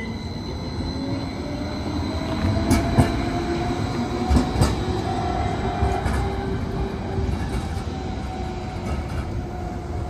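Tacoma Link light rail car running past, with a whine that glides slowly in pitch over a steady rumble. A few sharp clicks, from the wheels over rail joints, come about 3 and 4.5 seconds in.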